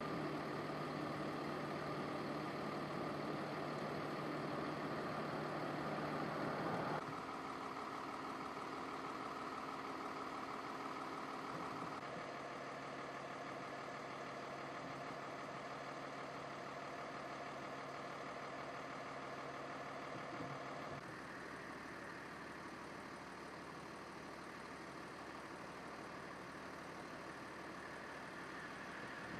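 Tow truck engine idling steadily, a low even hum that shifts abruptly in pitch and tone three times as the shots change.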